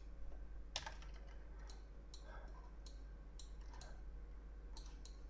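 Scattered faint clicks of a computer mouse and keyboard, the loudest about a second in, over a low steady hum.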